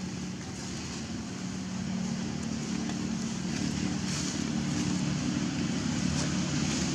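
A motor engine running with a steady low drone, growing a little louder about two seconds in.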